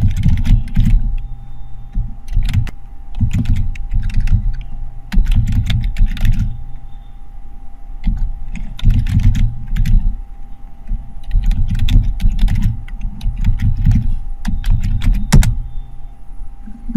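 Typing on a computer keyboard in quick bursts of keystrokes with pauses between, each key landing with a clicky thud, and one loud single keystroke near the end as the command is entered.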